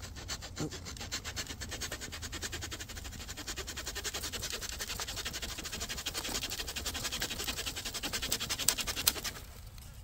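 Saw blade of a Nextorch MT20 multi-tool cutting through a dead branch, with quick, even back-and-forth strokes that stop about nine seconds in.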